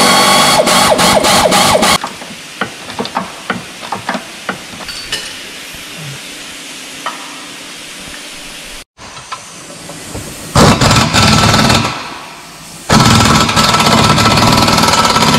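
Pneumatic air wrench running in rapid hammering bursts, driving home the bolts of a newly fitted rear shock absorber. There are three bursts: one at the start lasting about two seconds, and two more close together in the last five seconds. Light clicks and taps of hand tools come in between.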